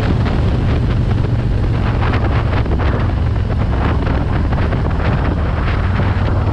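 Wind buffeting the microphone of a moving touring motorcycle, over the steady low drone of its engine.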